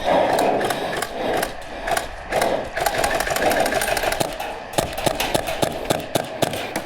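Airsoft gunfire: sharp snapping shots, coming fast and many in the second half, over the steady noise of the game arena.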